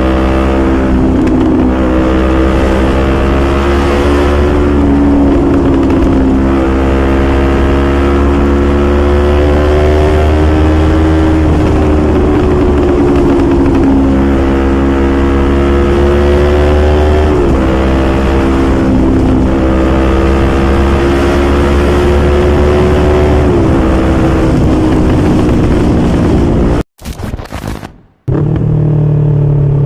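Yamaha R25's 249 cc parallel-twin engine pulling under way, its note climbing through the revs and dropping sharply at each upshift, several times over. The sound briefly cuts out near the end.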